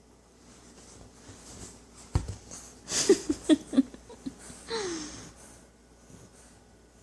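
English bulldog puppy, asleep and snoring, making noisy breathing sounds. A quick run of four short wheezing snorts comes about three seconds in, then a falling whine near five seconds. A single knock comes just before the snorts.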